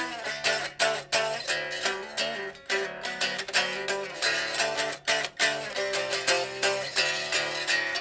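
Mensinger Birdy, a Firebird-style solid-body electric guitar, played amplified: chords strummed and picked in a quick, steady rhythm.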